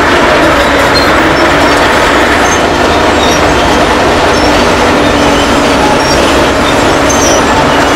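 Caterpillar D7F crawler bulldozer travelling: its diesel engine running steadily under the continuous clatter of its steel tracks, with small high squeaks from the track running gear.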